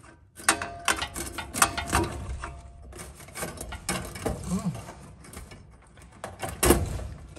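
Small wrench and the metal fittings of a gas fireplace's pilot and thermocouple assembly being handled: irregular metallic clicks and scrapes, with a short pause about three seconds in and the loudest clank near the end.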